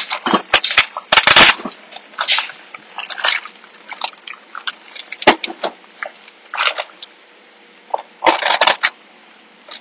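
Plastic bag sealing a new transmission valve body being pulled open and handled: irregular bursts of crinkling, with one sharp click about halfway through.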